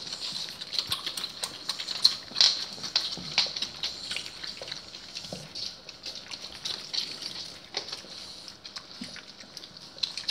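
Dogs shifting about on a wooden floor: irregular soft clicks and taps of claws and bodies, a couple of louder ones about two seconds in.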